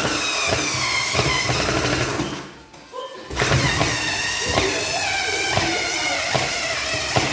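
Cordless drill-driver running in two bursts, a couple of seconds and then about four seconds, as it drives screws into a plastic junction box; the motor whine sags slightly in pitch under load, with small clicks.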